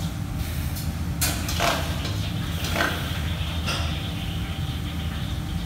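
Busy commercial kitchen: a steady low mechanical hum with a few short knocks and clatters of utensils and dishes.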